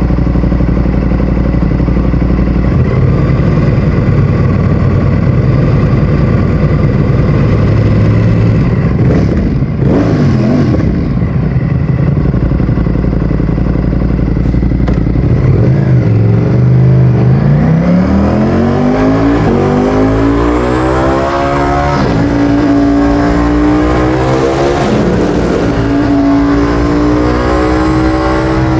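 Ducati Streetfighter V4S's 1103 cc V4 engine through an Akrapovic exhaust: running low and steady, with a short blip about a third of the way in, then accelerating hard with a rising note from about halfway, a gear change about three quarters through, and pulling on at higher revs.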